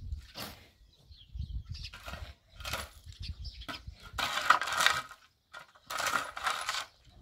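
A long-handled metal shovel scraping and pushing over stony, gravelly dirt, about five strokes, with the longest and loudest one a little past the middle.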